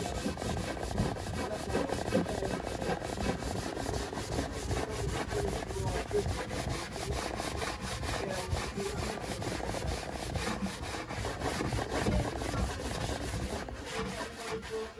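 Brush scrubbing back and forth across a wooden worktop in quick, steady strokes, buffing in a coat of wax.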